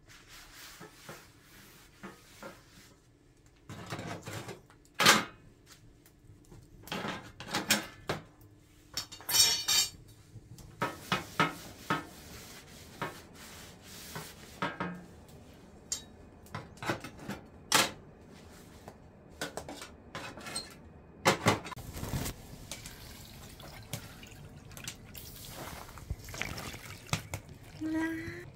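Metal tongs clacking and scraping on a griddle plate on top of a wood stove as a paper towel is wiped over it: an irregular run of sharp metal-on-metal clicks and clacks.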